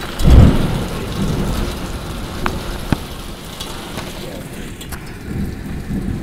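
Rain falling steadily in a thunderstorm, with a short deep boom of thunder, the loudest sound, about half a second in. Two sharp clicks come a couple of seconds later.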